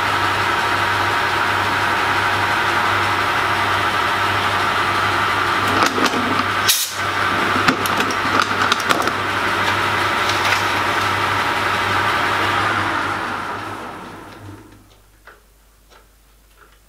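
Small metal lathe running steadily while a turning tool takes a light finishing cut on a slender rod, with scraping and clicking from the cut and one sharp click about seven seconds in. The motor is then switched off and the lathe runs down over a couple of seconds, leaving a quiet stretch with a few small handling clicks.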